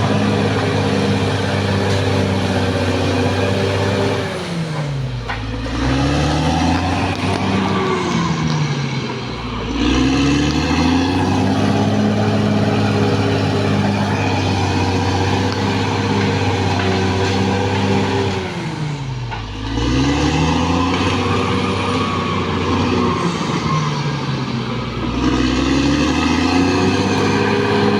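Caterpillar D6R XL bulldozer's diesel engine running steadily. Its pitch drops and climbs back twice, once about five seconds in and again around nineteen seconds.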